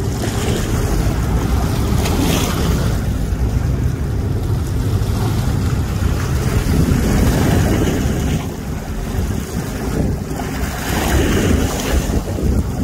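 Choppy river water rushing and splashing around a boat, under heavy wind buffeting the microphone that swells in gusts about three times.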